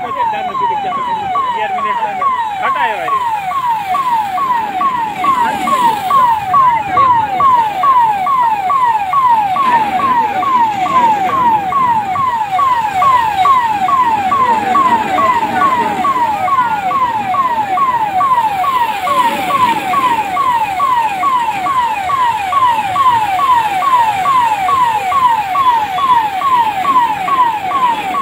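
Fire engine's electronic siren, a fast repeating wail that falls in pitch about twice a second, with crowd commotion beneath it.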